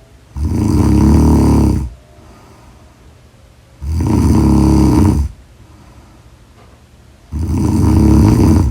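A person snoring loudly and evenly: three long snores, each about a second and a half, coming roughly every three and a half seconds, with quiet between them.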